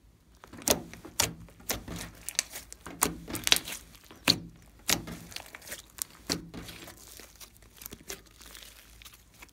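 Hands squeezing and folding a large mass of glossy slime, giving a quick string of sharp, wet clicks and pops that thins out and grows quieter in the last couple of seconds.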